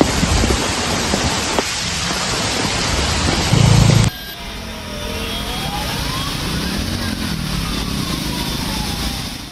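Heavy rain hissing steadily on a road, with a brief louder low rumble about three and a half seconds in. About four seconds in, it cuts to the quieter sound of cars driving through floodwater, with a faint tone that slowly slides down, rises and falls again.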